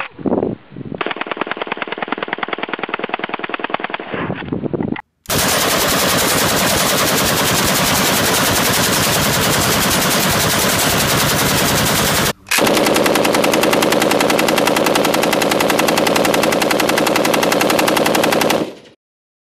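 Fully automatic gunfire in three long runs of rapid shots, each cut off abruptly. The first comes from an AK-pattern rifle and sounds thinner. The second, from about five seconds, comes from a drum-fed AK-pattern gun. The last, from about twelve and a half seconds to near the end, comes from a bipod-mounted belt-fed light machine gun.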